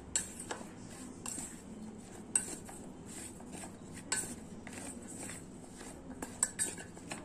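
Bottle gourd slices being tossed by hand in a stainless steel bowl: irregular soft taps and clinks of slices and fingers against the metal, with a few sharper knocks.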